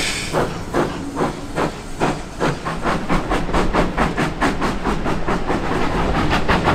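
Steam locomotive pulling a train away, its exhaust chuffs quickening from about two a second to four or five a second over a steady hiss of steam, heard from a carriage behind the engine.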